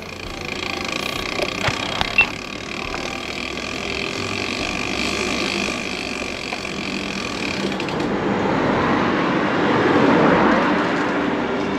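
Steady running noise of a vehicle in motion, with a couple of sharp clicks about two seconds in. A rushing noise swells louder from about eight seconds and eases near the end.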